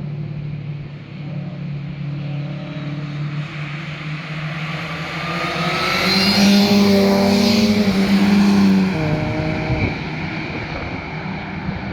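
Car engine driving past, growing louder to its loudest about six to nine seconds in, its note rising and falling; near nine seconds the pitch drops sharply and picks up again, like a gear change or lift off the throttle, then it carries on more quietly.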